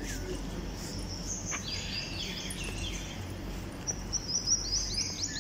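Birds calling: a few chirps falling in pitch about two seconds in, then a quick run of short, sharp chirps near the end, over a steady low background noise.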